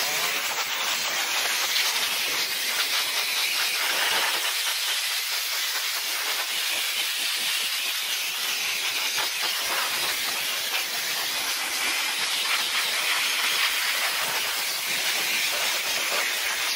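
High-pressure spray gun hissing steadily as it sprays water and engine-bay cleaning chemical over a car's engine bay.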